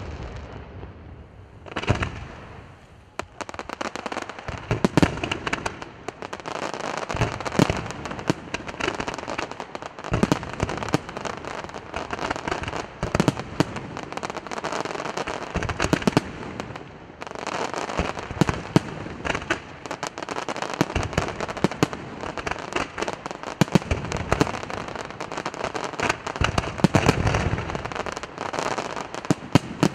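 Aerial firework shells bursting in quick succession, with sharp bangs over a near-continuous crackle of many small stars. It is quieter for a second or two near the start, then builds into a dense barrage.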